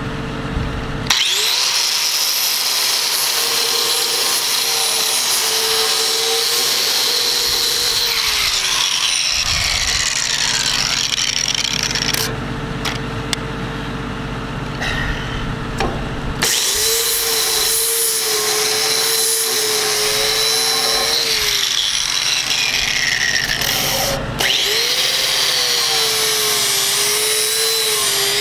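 Electric angle grinder cleaning paint and dirt off a steel plate and container corner to prepare it for welding. It runs in three stretches, winding down between them, and its whine wavers as the disc is pressed onto the steel.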